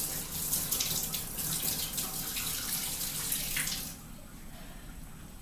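Kitchen faucet running into the sink, shut off about four seconds in.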